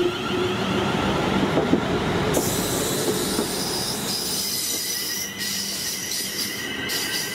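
Train moving along the rails with wheel squeal: steady high tones over running noise, with a few sharp clicks early on and a high hiss coming in a couple of seconds in.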